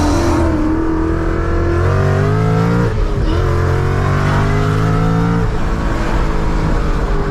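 Supercharged S550 Ford Mustang with a Corsa exhaust accelerating hard in a flyby: the engine climbs in pitch, drops with an upshift about three seconds in, climbs again in the next gear, then the driver lets off.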